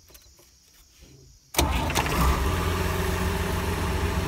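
International Harvester 1086 tractor's six-cylinder diesel engine starting about a second and a half in, catching at once and running steadily. The new starter drive engages without the rattle the old one made, whose overrunning clutch had locked up.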